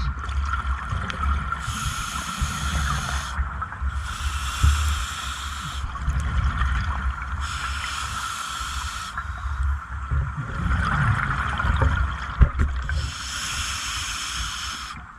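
Underwater scuba breathing: four hissing, bubbling exhalations through a regulator, each a second and a half to two seconds long, about every three seconds. A steady low rumble and a thin steady whine run underneath, with a few knocks.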